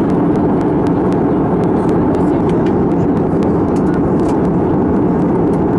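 Steady cabin noise inside an Airbus A320-200 in flight: the engines and the rush of air heard through the fuselage at a window seat over the wing, an even low rumble.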